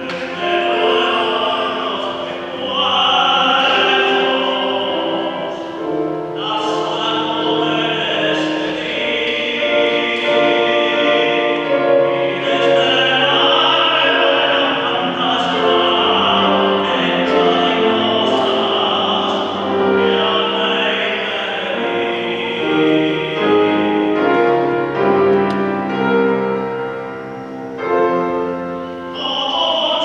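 A classical tenor singing with grand piano accompaniment. The voice drops out for a couple of seconds near the end while the piano carries on.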